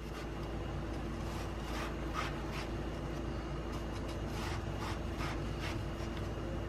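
Kitchen knife cutting down through watermelon flesh into a wooden cutting board, a series of short crisp cuts as parallel slices are scored into the melon half, over a steady hum.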